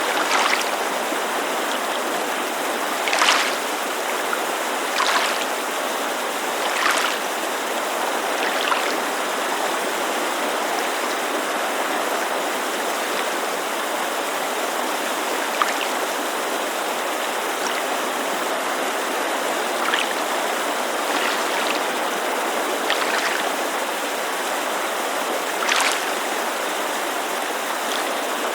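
Steady rushing of a mountain creek under small waves lapping against a lakeshore. The lapping shows as brief splashes, about every two seconds at first and more spaced out after the first ten seconds.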